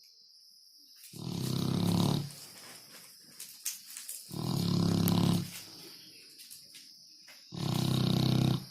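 A dog snoring: three loud snores about a second long each, roughly three seconds apart, in a slow steady rhythm.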